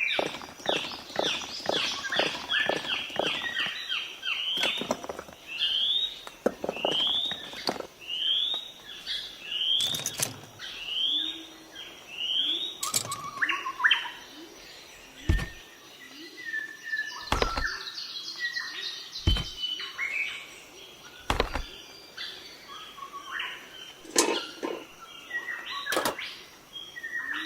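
Bird-like chirping: a rapid clicking run, then short rising chirps repeated about once a second, with scattered calls. Four deep thuds fall about two seconds apart near the middle.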